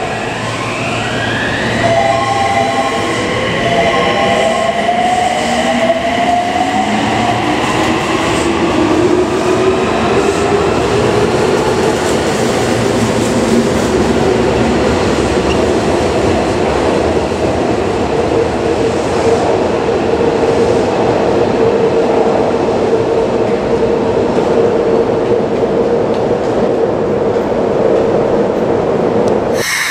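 Toei Mita Line 6300-series subway train pulling away from the platform. Its traction motors whine in several rising tones as it accelerates, then the steady running noise of the wheels on the rails carries on as it heads into the tunnel.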